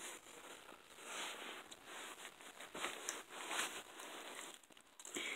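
Kitten gnawing on a raw chicken back, a faint run of irregular crunches as she chews the meat and bone.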